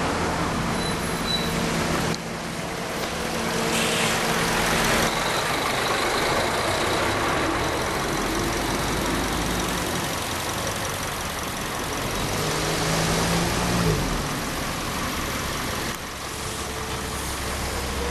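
Car engine idling with a steady low hum over a rushing background noise. A second engine note comes in about twelve seconds in and drops away about two seconds later.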